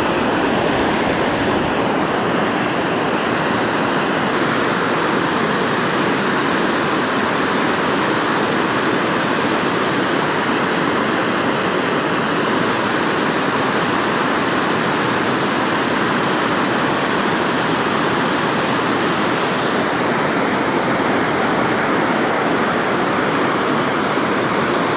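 Steady rushing of water pouring through a dam spillway, an even, unbroken noise.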